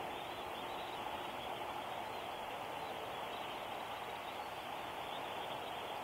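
A big flock of shorebirds and gulls calling at a distance, a dense, steady chatter of many voices with no single call standing out.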